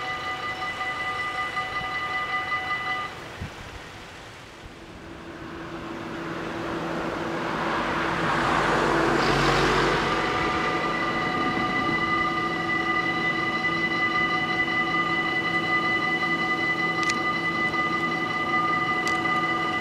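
Dutch level-crossing warning bells ringing with a steady pulsing tone; they stop about three seconds in. A rushing sound then swells to a peak and fades around nine seconds in, and the crossing bells start ringing again about ten seconds in and keep going.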